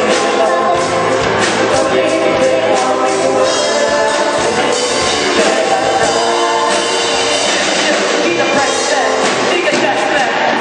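A band playing a pop song: singing over drum kit and guitar, loud and steady.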